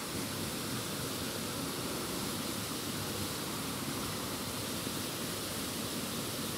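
Steady rush of flowing water from a rocky mountain stream, an even hiss with no breaks.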